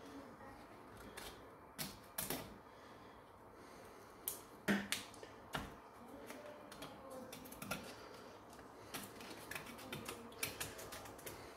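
Faint, irregular clicks and knocks of objects being handled, with a few louder knocks about two and five seconds in.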